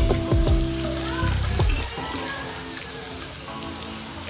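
Minced garlic sizzling and crackling in hot oil in a metal pan while a spatula stirs it, with a few scrapes in the first second and a half. The garlic is frying until it browns.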